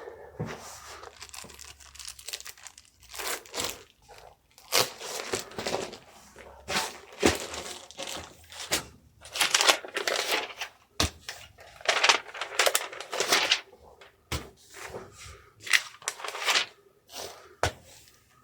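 Packaging material being handled while orders are packed: irregular bursts of crinkling and rustling, with a few short knocks in between.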